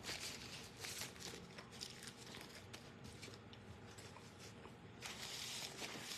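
Faint rustling, crinkling and crunching from a person eating a fried sandwich and wiping his hands, with a longer rustle near the end.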